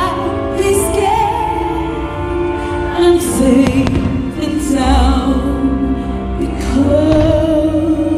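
A song with a female voice singing over instrumental backing, the music track of a pyromusical fireworks display. A few firework reports sound under it, the clearest about three seconds in.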